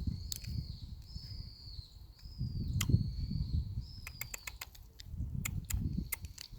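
A puppy grinding her teeth: sharp little clicks that come in a quick run from about four seconds in, over low rumbling movement noise.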